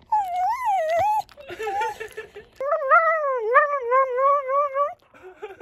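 Cocker spaniel howling in its 'I love you' reply to its owner: a short wavering call, a softer rough sound, then a longer wavering howl lasting over two seconds.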